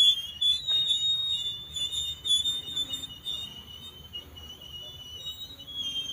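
High-pitched metallic squealing from the running gear of a slow-moving KAI K3 economy passenger coach as it rolls past, loudest in the first few seconds and fading toward the end.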